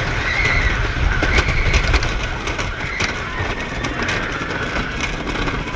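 Roller coaster train running along its track: a steady heavy rumble with rapid clattering clicks.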